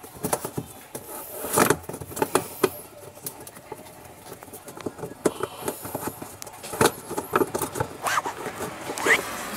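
Hands twisting and handling plastic and rubber parts under a washing machine's spin-dryer, close by: irregular clicks, knocks and scraping, with a short rising squeak near the end.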